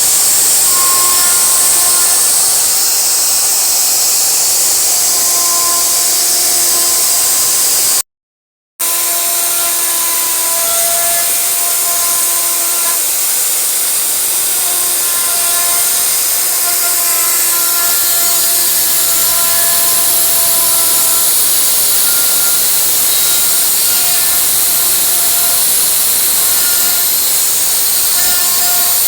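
CNC wood router at work carving wood: a steady high hiss from the spindle and cutter, with humming motor tones that rise in and fade out every second or two as the machine moves between cuts. The sound cuts out completely for under a second about eight seconds in.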